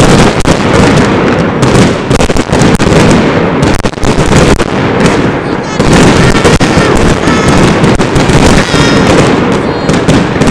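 Fireworks display at full barrage: aerial shells and ground-fired comets going off in rapid, continuous bangs and crackling, with high whistling tones from about six seconds in.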